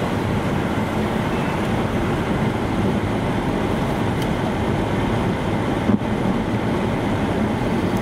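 Steady road and wind noise heard inside a vehicle driving on a snow-covered highway, with one short knock about six seconds in.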